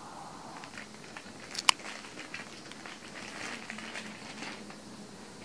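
Plastic-wrapped pillowcase package being handled, its wrapping crinkling and crackling. There is one sharp click about a second and a half in, and a longer spell of crinkling near the end.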